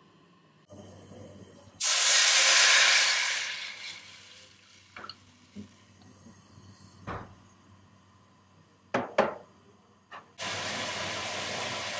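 Water heating in a frying pan on a portable gas stove. A loud hiss starts suddenly about two seconds in and fades over the next two seconds, followed by a few sharp ticks. From about ten seconds in comes a steady hiss of the water boiling.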